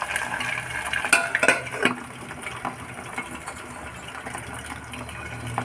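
Chicken drumsticks frying in oil in a steel pan on a low flame, with a few sharp metallic clinks about a second in as a glass lid is set on the pan.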